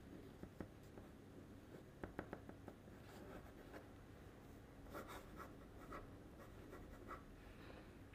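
Faint scratching of a Classmate Octane fountain pen's nib across paper as loops and squiggles are written, with a few sharp ticks about two seconds in and a quick run of short strokes in the second half.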